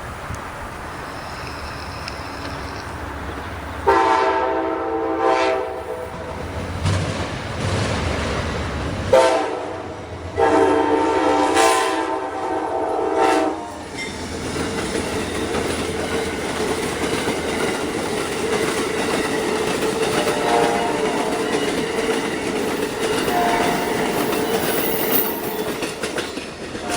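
Amtrak Silver Star passenger train passing. Its horn sounds three times: a long blast about four seconds in, then a short blast and a longer one. After that the cars roll by with a steady clickety-clack of wheels over old jointed rail.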